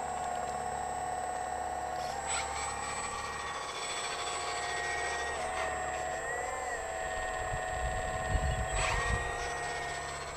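Hydraulic pump of a radio-controlled Liebherr 946 model excavator whining steadily as the arm and bucket move. Its pitch steps down twice and briefly rises and falls, and there are a couple of short clicks. Wind buffets the microphone near the end.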